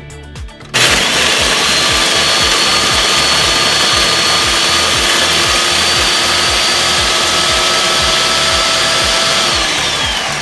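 Ninja Professional 1000-watt blender switched on about a second in and running at full speed, grinding chunks of bread into breadcrumbs with a loud, steady whine. Near the end the motor is switched off and its whine drops in pitch as it winds down. Background music with a steady beat plays underneath.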